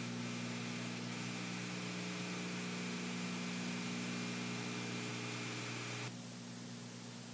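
Steady tape hiss with a low mains hum and a faint high whine from an old film soundtrack. The hiss thins about six seconds in as the sound starts to fade.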